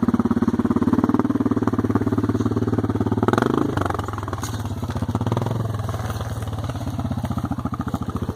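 ATV engine running steadily while towing a log on a homemade log arch; the engine note gets quieter about four seconds in.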